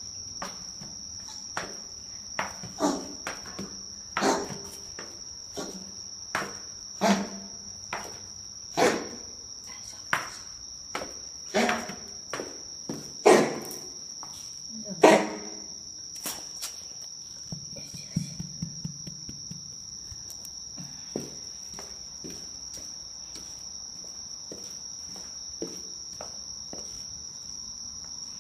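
Footsteps coming down stairs, a sharp knock about every second and a half, which stop about 15 seconds in and are followed by a few light scuffs. Under them, insects trill in one steady high note throughout.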